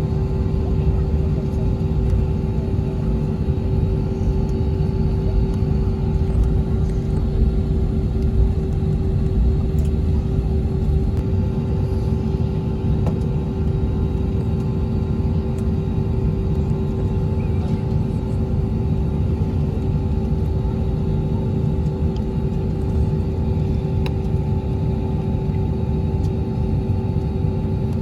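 Steady cabin noise inside an Airbus A321-200: an even low rumble with a constant hum, unchanging throughout.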